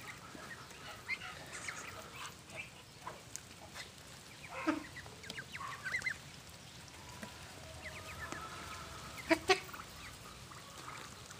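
A flock of Muscovy ducks foraging, giving scattered short, soft calls, with a louder, sharper pair of sounds just after nine seconds in.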